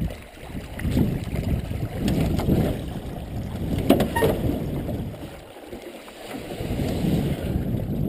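Canoe moving through a shallow, grassy creek: water swishing and rushing around the hull and paddle, rising and falling, with one sharp knock about four seconds in.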